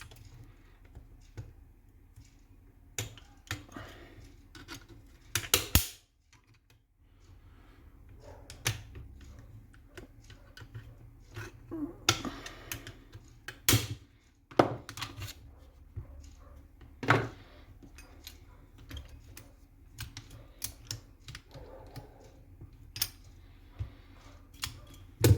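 Irregular clicks, taps and knocks of hand tools and parts being worked while an airsoft M14 rifle is taken apart, with a few short scraping stretches and several louder knocks.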